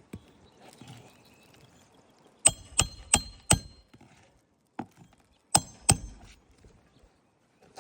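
Hammer driving roofing nails into a replacement three-tab asphalt shingle: four quick ringing strikes, a lighter tap, then two more strikes a couple of seconds later.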